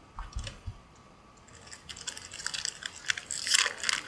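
Trading card pack wrapper crinkling and crackling as it is handled and torn open. It starts about a second and a half in and is loudest near the end, after a soft bump near the start.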